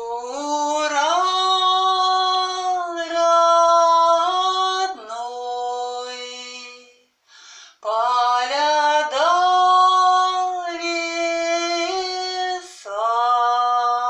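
A woman singing unaccompanied in long held notes that glide between pitches, with a short break about seven seconds in before the next phrase.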